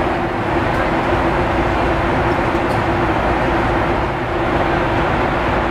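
Steady cabin noise of a Boeing 757-200 airliner in flight: an even rush of engine and airflow noise with a steady low hum running under it.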